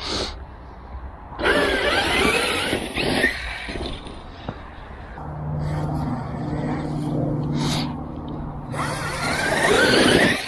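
Traxxas E-Revo 2 electric RC monster truck under throttle, its motor whine rising and falling in two bursts, about a second and a half in and again near the end. Between them a low steady hum runs for a few seconds.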